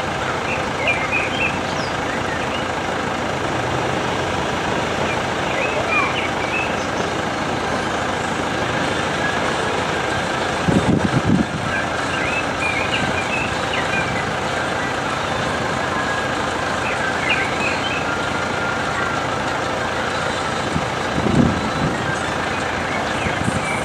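Level crossing warning bells ringing steadily with the barriers down, joined now and then by short high chirps. There are two brief louder low sounds, about halfway through and near the end.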